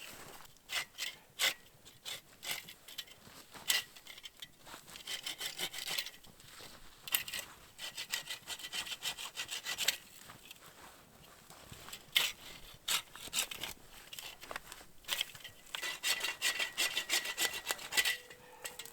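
Hand saw cutting through wood in several runs of quick back-and-forth strokes, with short pauses and single knocks between them.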